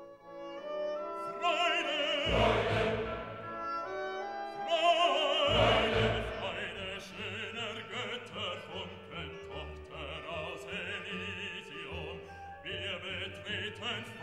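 Classical background music with an operatic voice singing with vibrato.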